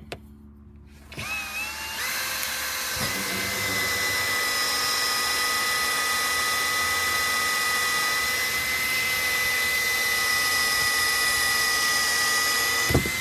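Power drill with the hole-cutting bit supplied in a parking-sensor kit, boring a sensor hole through a car's plastic rear bumper. The motor starts about a second in, quickly winds up to a steady high whine, holds it, then stops just before the end.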